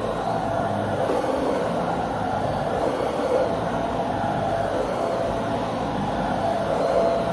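Dyson Ball Multifloor 2 upright vacuum cleaner running steadily: a continuous motor and airflow noise with a faint whine that comes and goes.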